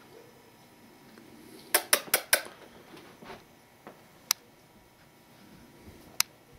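Sharp light clicks over quiet room tone: a quick run of four about two seconds in, then single clicks twice later on.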